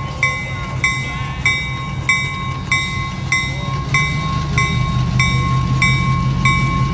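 A locomotive bell rings in steady strokes, about one and a half a second, over the low rumble of passing diesel locomotives. The engine rumble grows louder about two-thirds of the way through as the blue unit draws alongside.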